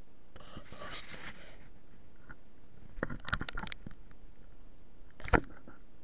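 Conifer foliage rustling as it brushes against the wagon-mounted camera, followed by a cluster of sharp clicks and taps around three seconds in and a single knock a little after five seconds.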